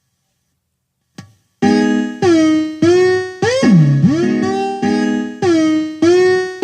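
Music played through a JBL Go 2 portable Bluetooth speaker. After a brief click, a plucked, guitar-like riff starts suddenly about a second and a half in; its notes repeat every half second or so, and some bend steeply down in pitch.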